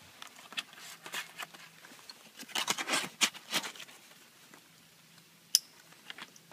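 MRE ration packaging being handled: foil and plastic pouches and a cardboard sleeve rustling and crinkling in a run of short scrapes, busiest about two and a half to three and a half seconds in, with one sharp click near the end.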